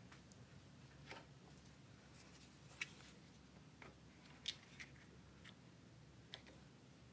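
Near silence with a few faint, scattered clicks from hands handling plastic one-handed bar clamps set on a glued door edge.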